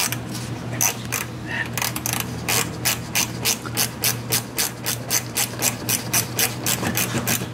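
Hand ratchet with a 10 mm socket clicking as it backs out the metal fasteners holding a plastic splash guard. The clicks come in an even run, about four a second, over the second half.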